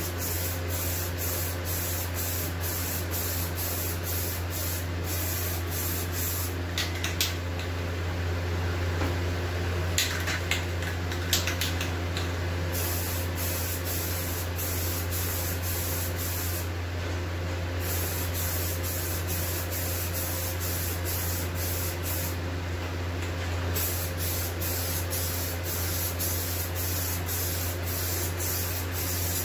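Rust-Oleum Peel Coat aerosol can spraying: a hiss in long passes, broken by several short pauses, with a few sharp clicks about a third of the way in. A steady low hum runs underneath.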